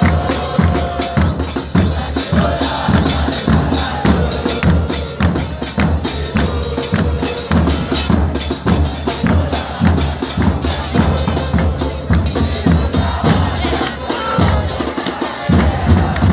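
Football supporters' band drumming: bass drums and snares beating a dense, steady rhythm, with crowd noise behind it.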